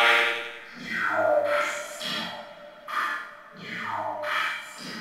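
Electronic outro music, a pitched sound swooping downward over and over, about once every second and a half, over low notes.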